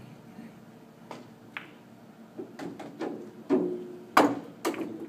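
Pool balls clacking off each other and the cushions after a shot, a scattered series of sharp knocks, the loudest coming about three and a half to four and a half seconds in.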